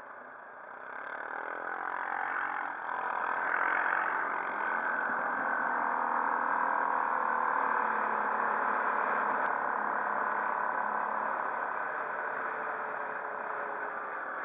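Quad bike (ATV) engine running, rising in pitch and getting louder over the first few seconds as it speeds up, then running steadily.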